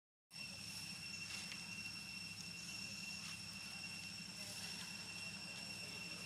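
Outdoor forest ambience: a steady, unchanging high-pitched insect drone over a low, steady rumble.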